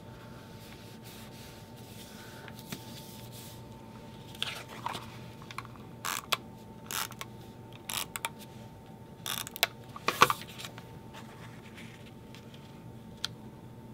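Tape runner drawn across the back of cardstock photo mats in a run of short strokes from about four seconds in to just past ten, the last one the loudest. Light paper handling and a single click follow, over a faint steady hum.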